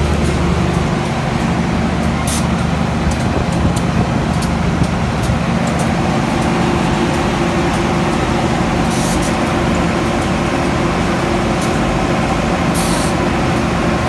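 Passenger train running: a steady rumble and low hum, with a few short hisses about two seconds in, about nine seconds in and near the end.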